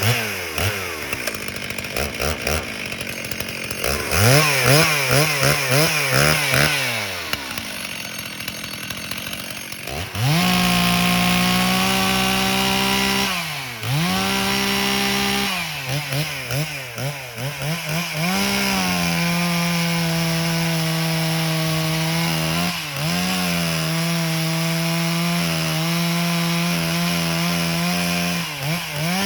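A Stihl 034 two-stroke chainsaw with a Meteor cylinder, first settling back, then blipped up and down quickly several times. It is then held at full throttle for long stretches, with a few drops and brief dips in speed.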